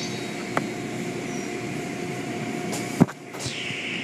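Automatic car wash heard from inside the car: a steady rush of water and cloth wash strips over the windshield and body, with a faint machine hum. A single sharp knock comes about three seconds in.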